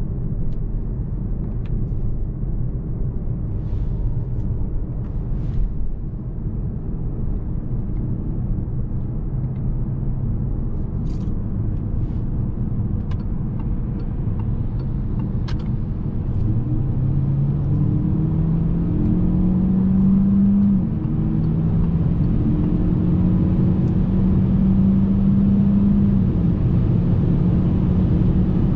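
Peugeot 508 PSE plug-in hybrid's 1.6-litre turbo four-cylinder petrol engine under way with steady road rumble; a bit past halfway the engine note rises as the car accelerates, dips briefly, then holds at a steady higher pitch.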